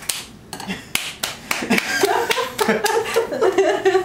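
A few scattered hand claps, then several people laughing.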